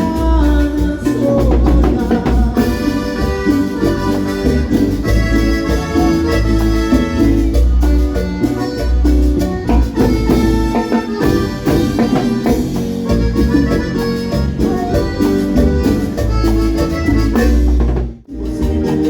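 Live cumbia band playing an instrumental passage over a steady bass and drum beat, with no vocals. The music drops out sharply for a moment near the end.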